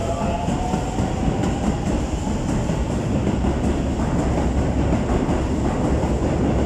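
Electric commuter train running past close alongside the platform, a steady rumble of wheels and motors on the rails.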